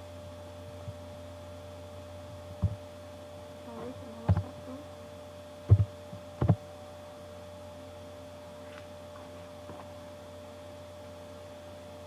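Steady electrical hum, with four short, dull thumps between about three and seven seconds in.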